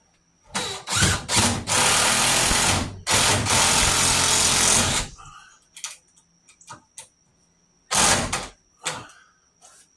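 Cordless drill driving screws into wood, running in several trigger pulls: a short blip, two long runs of about one and a half and two seconds, then a short burst near the end.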